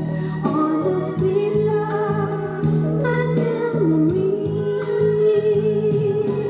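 PYE Companion 1000 stereo cassette player playing back a song: a held, wavering sung melody over steady accompaniment.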